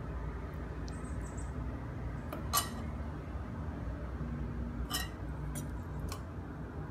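A few scattered light clinks of a utensil against a dish, the sharpest about two and a half seconds in, over a steady low hum.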